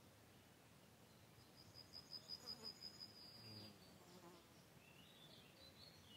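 Faint buzzing of a flying insect passing for about two seconds in the middle, pulsing in level, followed by a few short high chirps near the end.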